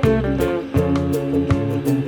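Background music led by guitar, with plucked notes over a bass line and a steady beat.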